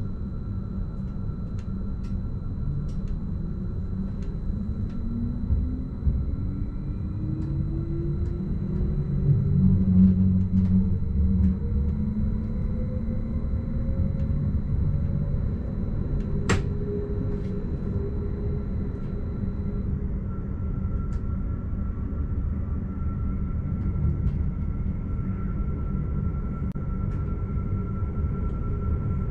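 A Stadler RABe 515 'Mutz' electric multiple unit pulling away and accelerating, heard from inside the driver's cab: a whine from the traction drive rises in pitch over about ten seconds above a steady low rumble of the running gear. A thin high steady tone stops about two-thirds of the way through, and there is one sharp click partway through.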